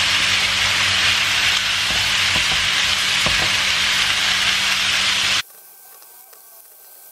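Vegetables sizzling in hot oil in a stainless-steel pan as they are stirred with a spatula, with a few light scrapes. The sizzle cuts off suddenly about five seconds in, leaving a much quieter stretch.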